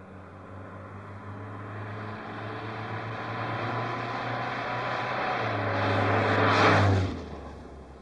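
A car approaching and passing by. Its engine hum grows steadily louder, peaks about seven seconds in, then drops in pitch as it goes past and fades away.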